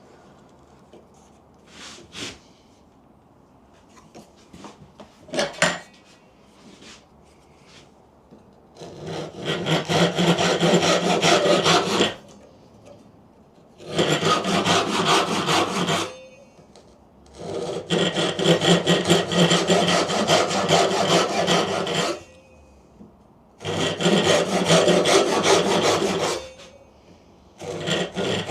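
A few light knocks and clicks, then from about nine seconds in a hand saw cutting wood in runs of two to four seconds, with short pauses between them.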